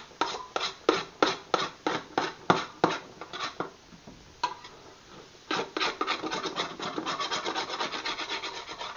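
Metal slotted spoon scraping and stirring diced onions across the bottom of a stainless steel stockpot, working loose the browned bits stuck there. The strokes come about three a second, ease off for a moment around the middle, then pick up into faster, denser scraping.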